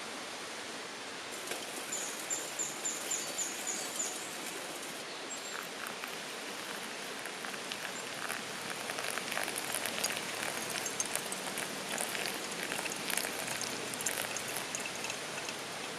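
Steady rushing of a forest stream. About two seconds in, a bird gives a quick run of about eight high, even notes. Later a patter of light clicks and rustles comes over it.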